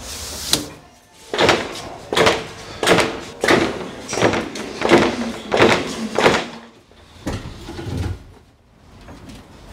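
Background music with a steady beat, its strokes coming about every 0.7 seconds, fading to quieter sound after about six seconds.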